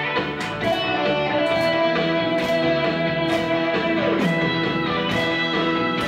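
Accompaniment music led by electric guitar over a steady drum beat; the guitar holds a long note and then slides steeply down about four seconds in.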